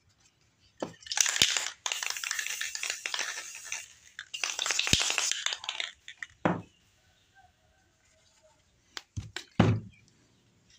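Airbrush spraying paint in two uneven hissing stretches of a few seconds each, then a few knocks near the end as a plastic paint bottle is set upright on the wooden bench.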